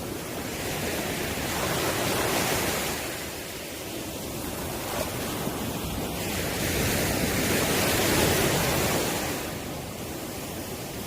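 Sea waves breaking and washing on the shore, a continuous surf that swells and recedes twice, with some wind on the microphone.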